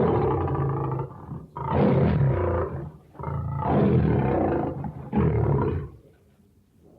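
Sound-effect roars of a fictional manticore 'demon bear', built from lion and bear sounds. Four long, deep roars follow one another with short breaks, then there is a pause near the end.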